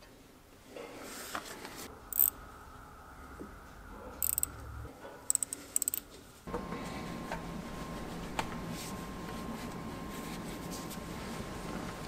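Faint metallic clinks and handling noises as a block heater is worked by hand into the core plug hole of an engine's cylinder head, with a few sharp clinks in the first half. After that, a steady faint hum with a thin high tone.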